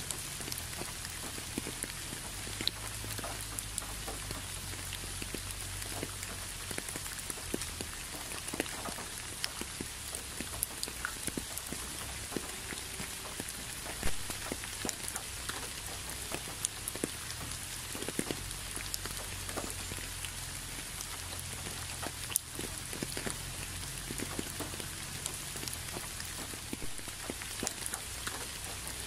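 Steady rain, with many separate drops landing close by at irregular moments over the hiss and a low rumble underneath. One drop about halfway through stands out as the loudest.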